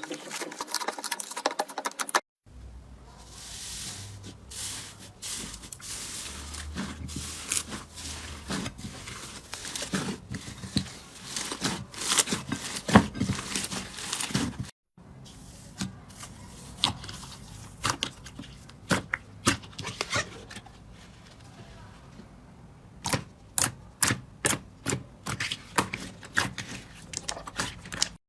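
Slime being squeezed and poked by hand, with sharp popping and crackling clicks. The sound breaks off briefly about two seconds in and again about halfway, where one clip gives way to the next. Near the end it turns into an even run of crisp clicks, about three a second.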